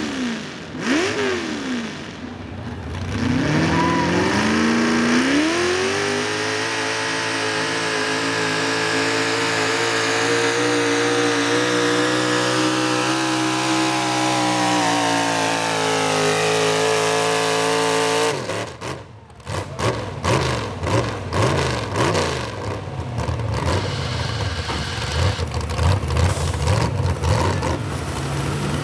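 440-cubic-inch small-block Chevy V8 pulling truck on a weighted sled. It blips the throttle a few times, then launches with its revs climbing and holds high rpm under full load for about twelve seconds. Around 18 seconds in the throttle shuts abruptly, and the engine falls to a lower, wavering run with sharp pops and cracks.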